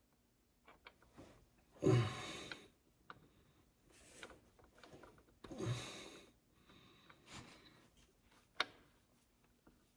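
A person breathing out heavily through the nose twice, as if straining, with small clicks of tools and metal parts and one sharp tap near the end.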